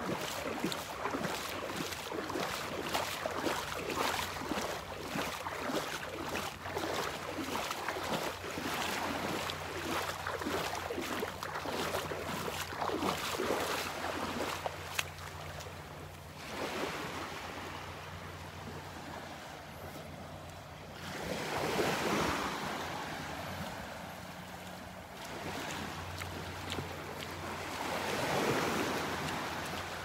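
Footsteps splashing in shallow water at a steady walking pace, about two a second, through the first half. After that, gentle surf and wind on the microphone swell and fade three times.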